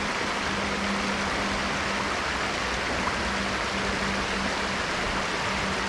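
Steady rush of a small trout stream's flowing water.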